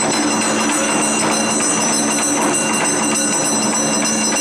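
Awa odori music played live: barrel drums beaten in a steady, busy rhythm under a dense metallic ringing and held shrill tones.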